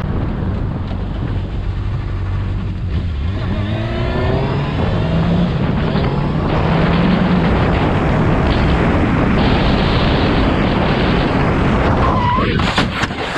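Sport motorcycle's engine revving as it accelerates, with steady wind rush on the helmet-mounted microphone. Near the end comes a brief squeal, then a burst of sharp impacts as the bike crashes.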